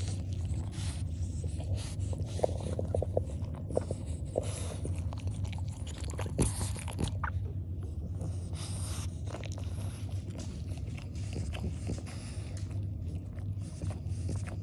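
Newborn French bulldog puppies suckling at their mother's teats: a run of wet smacking and clicking sounds over a steady low hum.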